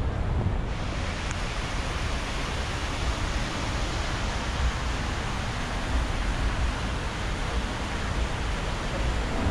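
Steady outdoor city background noise: an even rush with a strong low rumble, which turns brighter and hissier about a second in.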